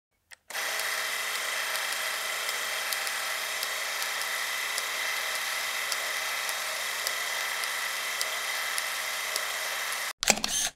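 A steady mechanical whine and hum with a few faint ticks, starting about half a second in and cutting off suddenly near the end, followed by a brief louder burst of a different sound.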